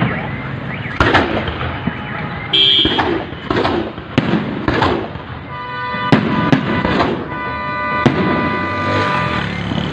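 Aerial fireworks shells bursting overhead, a sharp bang every second or so. Through the second half a steady high pitched tone sounds beneath the bangs.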